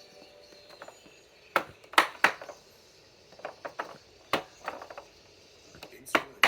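An irregular series of sharp clicks and knocks from hard objects being handled, about nine in all, the loudest two close together about two seconds in.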